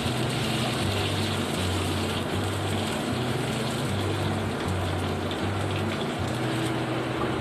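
Sliced onions and whole spices sizzling steadily as they fry in hot oil in a non-stick pan. Soft background music with a low bass line plays underneath.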